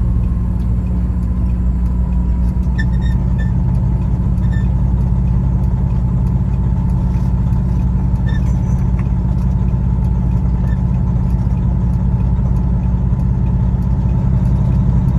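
Peterbilt semi-truck running down the road: a loud, steady low diesel drone with a faint steady high whine over it and a few small ticks.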